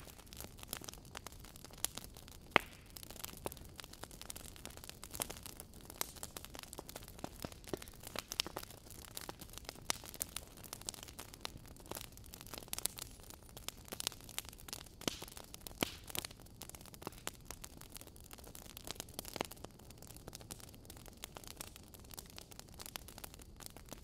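Wood fire crackling: frequent irregular small pops and snaps of burning logs over a faint hiss, with one sharper snap about two and a half seconds in.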